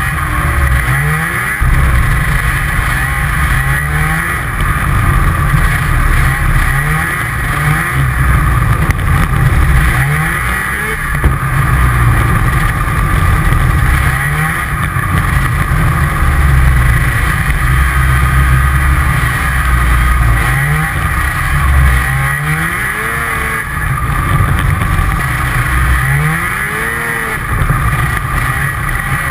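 Snowmobile engine running at speed, its revs rising and falling again and again as the throttle is worked.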